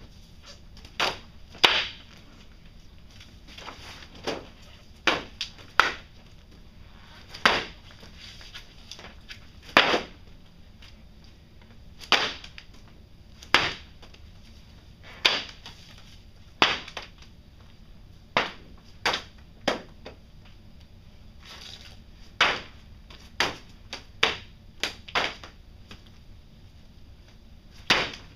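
A small black furry rabbit-shaped object tossed again and again onto a white surface, each landing a short, sharp slap. There are about twenty hits at uneven intervals of one to two and a half seconds.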